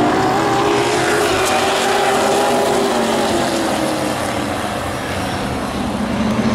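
Several vintage modified race cars running at speed around an oval track, their engines blending into one steady drone. The sound eases a little past the middle and builds again near the end.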